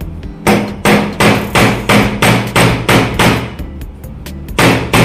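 Hammer tapping a screwdriver wedged into an e-bike motor controller's aluminium case, driving out the metal clamp strip that presses the MOSFETs against the heatsink. About nine quick blows, roughly three a second, then a pause and one more blow near the end.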